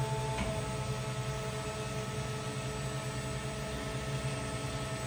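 Behringer HBP 530 bandsaw running: a steady machine hum with several steady tones. About half a second in there is a faint click and the tones change, as the machine switches its operation.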